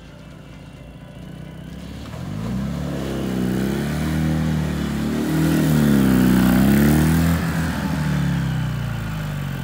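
Ural sidecar motorcycle's 750 cc flat-twin engine running as the bike draws near and goes by. It grows louder and slightly higher over a few seconds, is loudest about two-thirds of the way in, then fades and drops in pitch.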